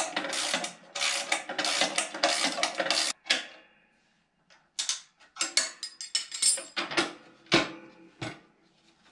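Ratchet wrench clicking rapidly as the nylon lock nuts are run down on the chute-mount bolts, then a pause and a few separate metallic clicks and clinks, with a heavier clunk near the end.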